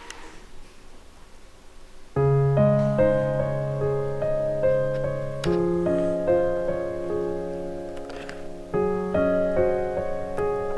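Background piano music, a melody of short notes over held low notes, starting about two seconds in.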